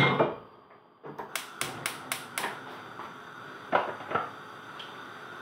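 Gas stove burner igniter clicking rapidly, five or six times about four a second, then the burner catching with a steady gas-flame hiss. A knock at the very start and two more clatters near the end.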